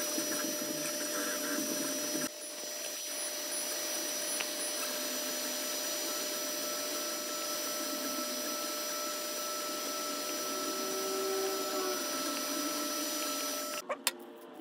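Creality Ender 3 3D printer running a print: a steady fan hum with several fixed whining tones from the hotend fans and stepper motors. The sound changes abruptly about two seconds in and cuts off shortly before the end.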